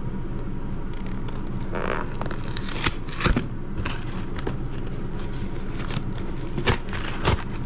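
Cardboard shipping box being pried and torn open by hand: the flaps scrape and tear, with sharp snaps about three seconds in and twice near the end, over a steady low hum.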